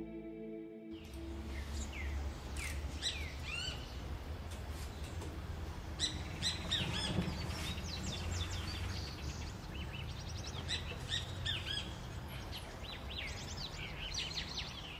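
Birds chirping: many short, quick sweeping calls, starting about a second in, over a steady low rumble.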